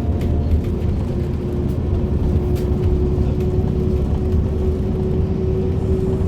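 Steady low rumble of a running vehicle, with a steady hum that sets in about a second in.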